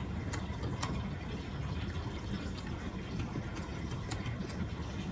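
Computer keyboard keys clicking a few times, one at a time, as a word is typed, over a steady low background hum.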